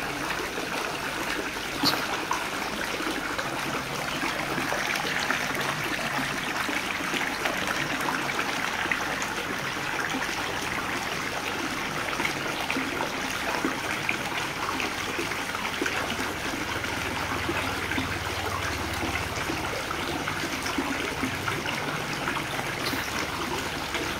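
Nile tilapia crowding and thrashing at the water surface as they feed on pellets: a steady, dense splashing with one sharp tap about two seconds in.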